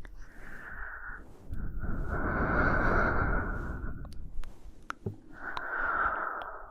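A woman's slow, close-miked breathing: a short breath at the start, a long, louder breath from about one and a half to four seconds, and another beginning near the end, with a few faint clicks between them.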